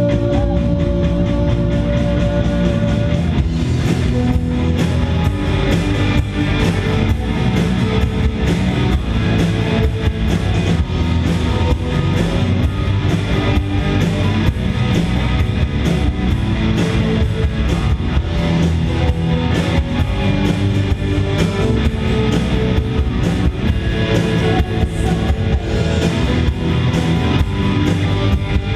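Live rock band playing loud: electric guitars over a drum kit, with a held note ending about three seconds in.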